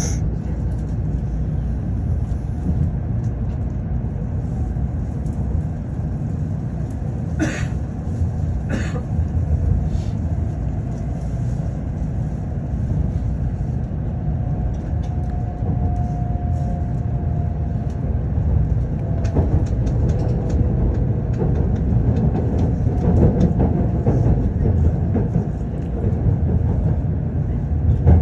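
Shinkansen running on its track, heard from inside the passenger car: a steady low rumble, with two sharp clicks about seven and nine seconds in and a faint whine near the middle.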